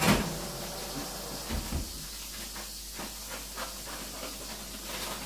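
Kitchen handling sounds: a sharp knock right at the start, then scattered faint clicks and knocks over a steady hiss.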